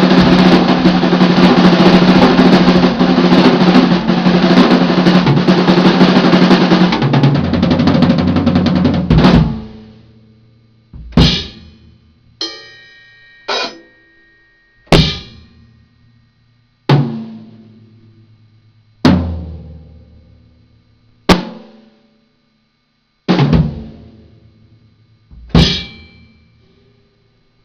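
Drum kit played in fast, continuous fills and rolls for about nine seconds. Then it breaks into about nine single accented hits, roughly one every two seconds, each left to ring out.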